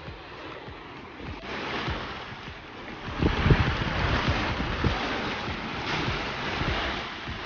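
Rushing water, growing louder about a second and a half in and again near three seconds, with wind thumping on the microphone.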